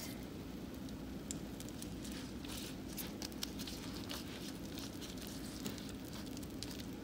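Melted butter crackling as it is brushed onto hot, fresh-baked feteer pastry on a metal sheet pan: a steady run of fine, irregular crackles and ticks.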